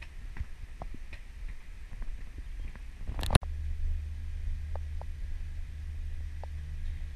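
Footsteps and occasional clicks on a paved street under a constant low rumble of wind and handling noise on an action camera's microphone. A little over three seconds in, a short rising rush cuts off abruptly. After that a steadier low hum continues, with a few isolated clicks.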